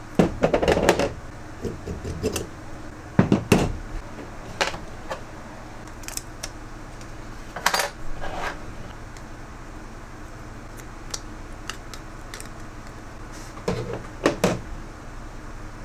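Small tools and metal parts clinking and knocking on a tabletop while parts are handled at a workbench, in scattered clicks with a few clusters, over a faint steady low hum.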